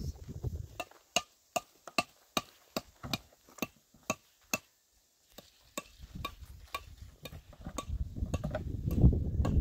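A run of sharp, evenly spaced taps, about two or three a second, pausing briefly midway, then a low rumbling noise rising near the end.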